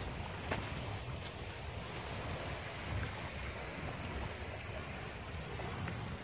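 Wind buffeting the microphone over a steady rush of water, with a few faint ticks.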